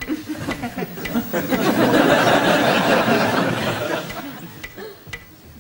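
Studio audience laughing, swelling about a second in and fading away near the end.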